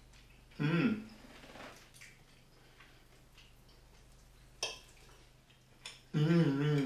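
A man tasting food with his mouth closed: a short hummed "mm" about half a second in, a single clink of a fork on a plate past the middle, then a longer hummed "mmm" with a wavering pitch near the end.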